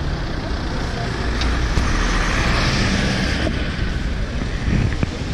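City street traffic: cars passing close by with a steady low engine rumble and tyre noise, one passing car swelling louder about two seconds in and fading again.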